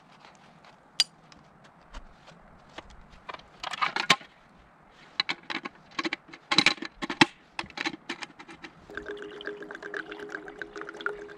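Folding camp table being unfolded and set up: irregular clicks, clacks and rattles of its legs and slatted top snapping into place. From about nine seconds in, liquid pours steadily from a kettle into a cup.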